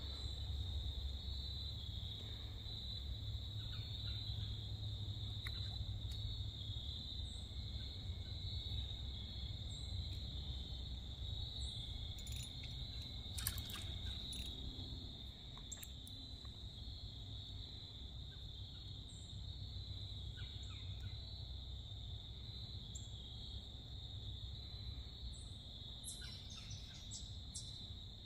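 A steady, high-pitched chorus of trilling insects goes on without a break over a low rumble, with a few faint clicks here and there and a small cluster of them near the end.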